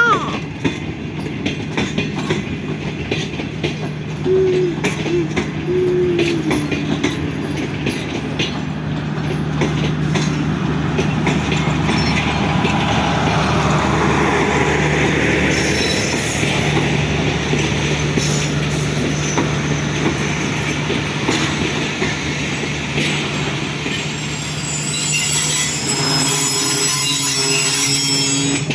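Pakistan Railways passenger train's coaches rolling past at speed, with a steady rumble and a run of clicks from the wheels crossing rail joints. High-pitched wheel squeal comes in around the middle and again near the end.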